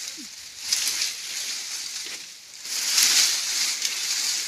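Dry bean plants and pods rustling and crackling as they are handled during picking, in two louder swells.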